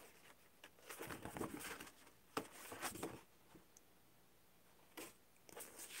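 Faint rustling and crinkling of eco-printed paper sheets being picked up, leafed through and laid back on the pile, in several short irregular spells with a pause a little past halfway.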